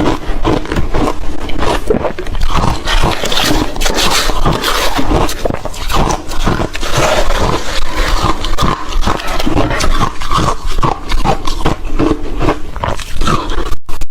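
Close-miked crunching and chewing of ice, a dense run of loud, irregular crunches.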